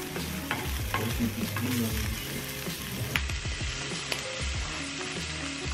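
Sausage crumbles sizzling in a hot nonstick frying pan, stirred with a plastic slotted spatula that scrapes and clicks against the pan.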